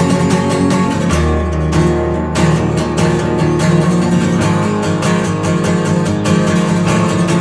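Background music led by strummed acoustic guitar with a steady beat.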